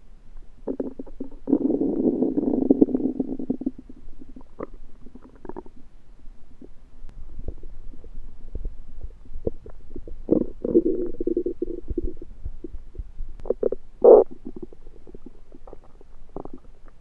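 Human stomach and intestines rumbling and gurgling: a long gurgle early on, scattered small pops and clicks, a second gurgle about halfway through, and a few sharp squelches near the end. The uploader thinks the noises come from food he undercooked.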